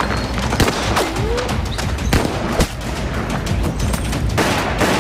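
A string of pistol shots in a gunfight, some in quick runs and some alone, over background music.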